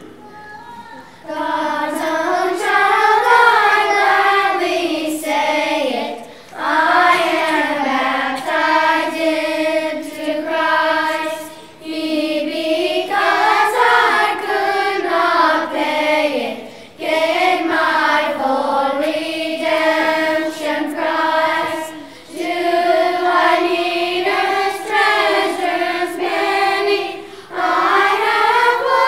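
Children's choir singing a hymn in unison, in phrases of about five seconds with short breaks for breath between them.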